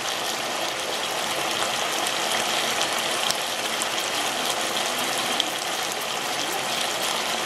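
Chicken tocino pieces simmering in their sweet sauce in a frying pan: a steady sizzling hiss with scattered small pops.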